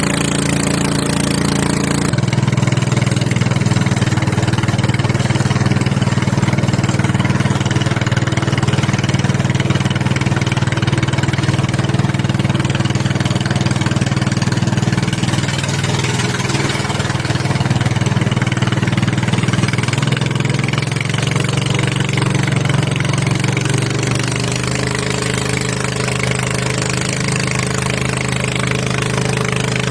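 A small engine running steadily throughout, its pitch and loudness shifting a few times: it steps up about two seconds in and settles slightly lower and quieter later on.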